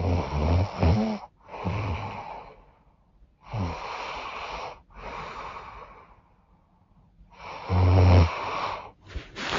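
A woman snoring heavily through a blocked, runny nose. Rattling snores alternate with noisy breaths, about one snore every four seconds, and the loudest snore comes about eight seconds in. A couple of short clicks follow near the end.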